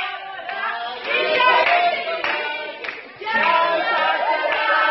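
Several voices singing together, with sharp hand claps at intervals among them.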